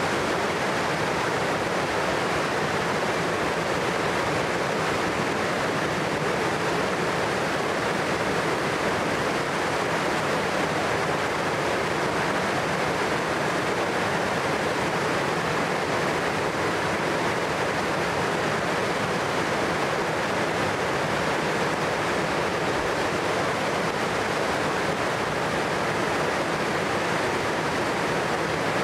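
A river in flood rushing through white-water rapids: a steady, unbroken noise of fast-moving floodwater.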